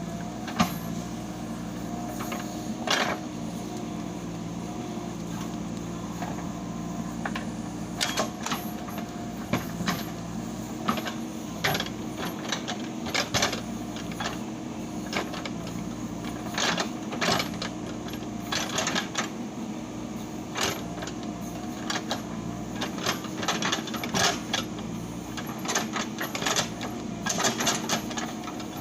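JCB 3DX Super backhoe loader's diesel engine running steadily under work, with frequent sharp clanks and knocks from the machine, more of them in the second half.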